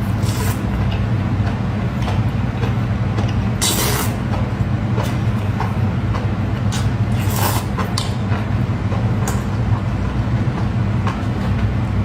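Close-miked eating sounds of spicy enoki mushrooms: a few short, sharp slurping or chewing bursts over a loud, steady low rumble.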